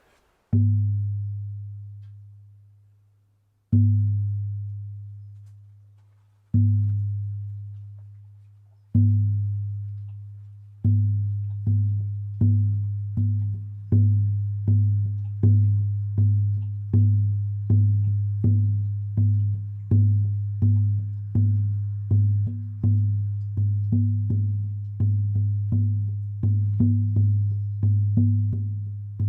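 Buffalo-hide shamanic frame drum being struck: four single beats a few seconds apart, each letting a deep boom ring out and die away, then a steady beat of about one and a half strikes a second.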